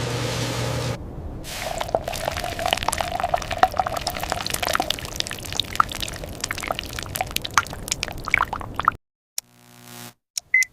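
Something pouring: a dense run of many small, irregular clicks and patters that follows a steady machine hum cutting off about a second in. The pouring stops suddenly near the end, followed by a brief faint hum.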